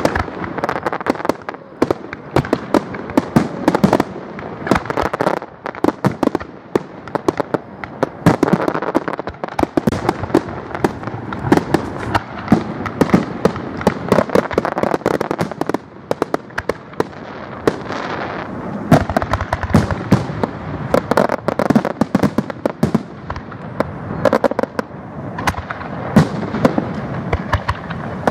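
Aerial fireworks display: shells bursting one after another, with dozens of sharp bangs, often several a second and overlapping.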